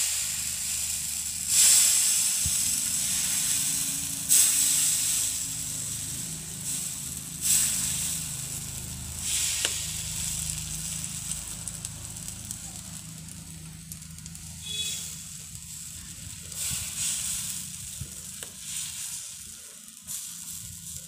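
Thin rice-flour batter sizzling on a hot tawa. The hiss flares up each time a fresh splash of batter hits the pan, every few seconds at first, and then settles into a softer, fading sizzle as the lacy pancake cooks.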